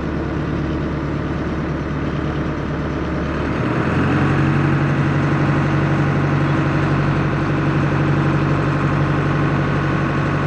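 Steady drone of running engines or pumps, with several held tones. A little under four seconds in, the low notes shift and the drone gets a little louder.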